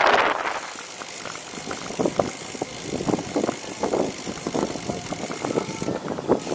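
Road bicycle rolling over paving stones, with an irregular clatter of small knocks and rattles from the bike as the tyres cross the joints. A short gust of wind on the microphone comes at the start.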